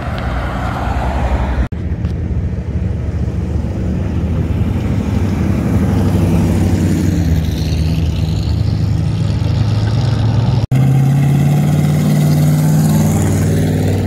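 Classic cars' engines running as the cars drive slowly past one after another, a steady low engine hum. The sound breaks off and changes abruptly about two seconds in and again near the end, where a louder, steadier engine hum takes over.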